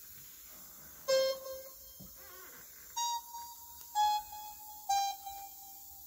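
Music played back through a hi-fi system: four single piano-like notes about a second apart, each struck and fading, the first lowest and the next three higher and stepping down.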